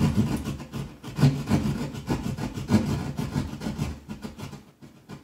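DeWalt jab saw cutting through drywall by hand, rasping in repeated back-and-forth strokes. The sawing stops about four and a half seconds in.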